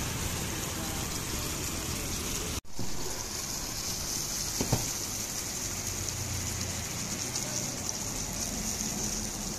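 Chicken steak and sauce sizzling on a hot cast-iron sizzle plate, a steady hiss that breaks off for an instant about two and a half seconds in.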